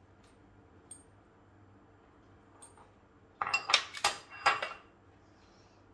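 Kitchenware clattering: a couple of faint taps, then a quick cluster of four or five sharp clinks and knocks with some ringing about three and a half seconds in, as utensils and dishes are set down or knocked together.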